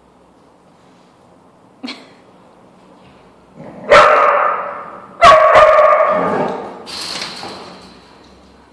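A dog barking twice, loud and about a second apart, as two dogs tussle over a dog bed. A brief sharp sound comes about two seconds in, and a fainter, breathier sound follows the barks.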